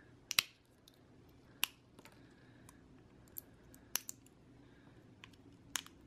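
Straight-nose pliers breaking excess cured UV resin off homemade resin keycaps: a few sharp, separate cracks and clicks at irregular gaps of a second or so.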